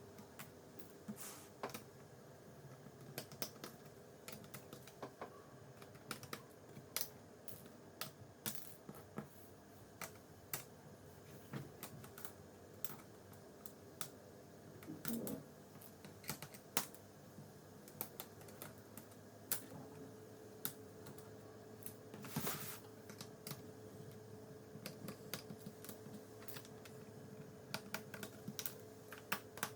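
Irregular small clicks and taps of a screwdriver working the screws out of a laptop's plastic bottom cover, a few a second with pauses between.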